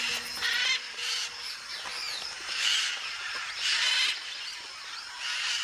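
A flock of macaws squawking, with about four loud, harsh calls and fainter calls between them.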